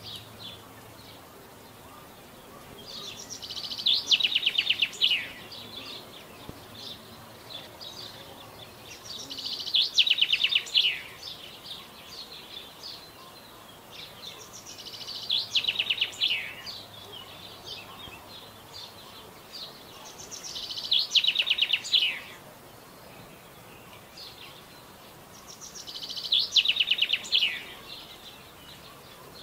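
A songbird singing the same short phrase five times, about every five and a half seconds: a fast run of high notes that drops in pitch at its end, each lasting under two seconds.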